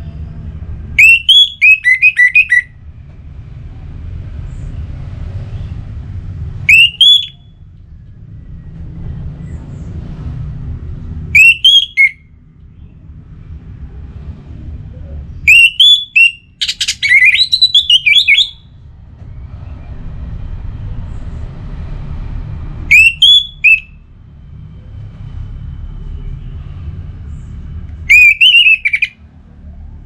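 Orange-headed thrush singing: six loud phrases of quick, sharply rising whistled notes a few seconds apart, the longest about three seconds near the middle. A low rumble fills the gaps between phrases.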